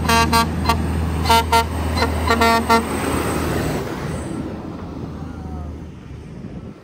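Vehicle horn sounding a quick run of short toots in the first three seconds, over the low, steady drone of a running truck engine that fades away toward the end.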